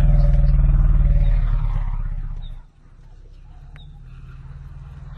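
Elephant growl: a loud, very deep, rumbling growl that fades and dies out about two and a half seconds in, followed by a quieter low rumble.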